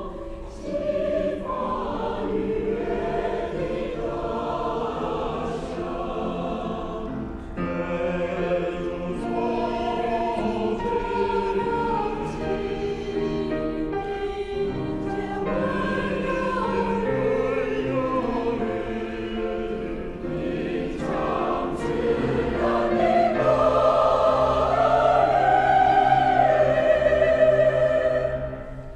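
Mixed choir of men's and women's voices singing a Chinese choral song in sustained chords. The singing swells louder in the last few seconds, then breaks off briefly at a phrase end.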